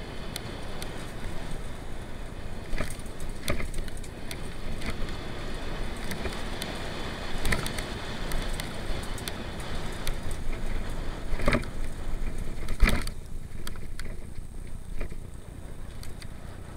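Mountain bike ridden fast over a dirt trail: a steady rumble of tyre and riding noise, broken by sharp knocks as the bike hits bumps, the loudest about thirteen seconds in.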